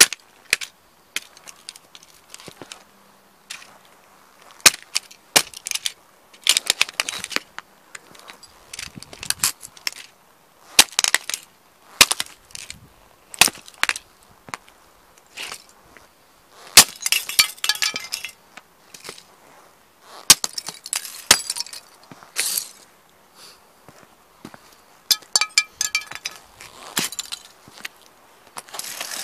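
Lowa hiking boots stomping on and crushing small plastic toy model cars on concrete: sharp cracks and snaps of breaking plastic at irregular intervals, some single, some in quick crackling clusters as the car gives way under the sole.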